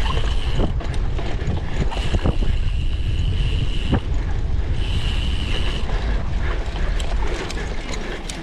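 Cyclocross bike being ridden hard over rough ground: wind rushing on the microphone, the chain and frame rattling and clicking, and three short, high-pitched whines from the bike.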